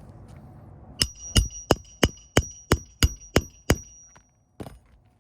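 Hammer driving nails: nine quick strikes, about three a second, each with a metallic ring that hangs on briefly after the last blow.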